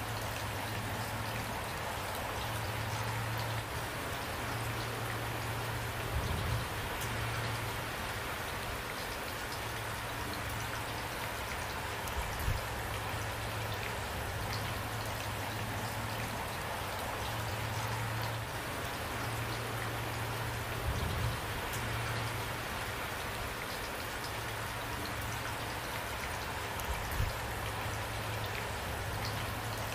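Steady rain falling, with a few brief low thumps now and then.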